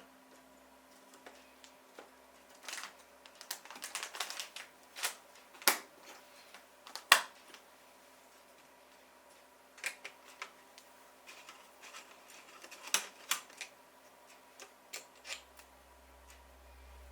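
Irregular clicks and clacks of hard plastic and metal computer parts being handled and fitted together, with a few sharper knocks around the middle. A low hum comes up near the end.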